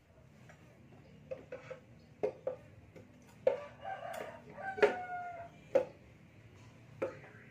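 Scattered metal clinks and knocks from hand tools and parts at a scooter's rear hub, with a rooster crowing for about a second in the background, around four to five seconds in.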